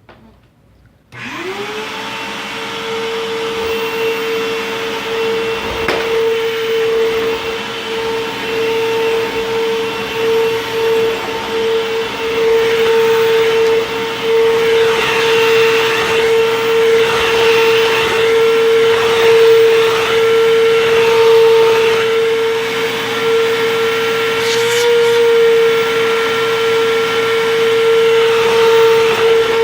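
Bissell CleanView Helix upright vacuum cleaner switched on about a second in, its motor spinning up with a quick rising whine, then running steadily over a rug with a strong, even whine that swells and dips as it is pushed back and forth. It is running without its brush roll, which makes it sound a little weird.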